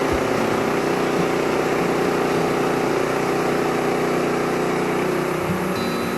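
Wood-Mizer LT15START portable band sawmill running steadily, its engine driving the band blade through a long log to square one side of a beam.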